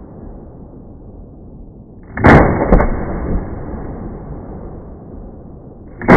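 Two rifle shots from an HK G3A3 7.62×51mm battle rifle, about four seconds apart, each loud crack followed by a sharper short crack about half a second later and a rolling echo.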